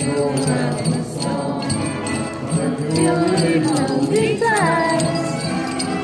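Christmas music with jingle bells ringing over a steady bass line and a gliding melody.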